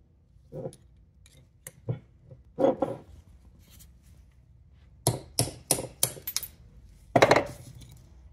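A hammer striking a 3/16-inch pin punch to drive out the roll pin that holds the spider-gear cross shaft in a Dana open differential carrier. A few scattered metal knocks come first, then a quick run of about six strikes a little past halfway, then one louder, longer clank near the end.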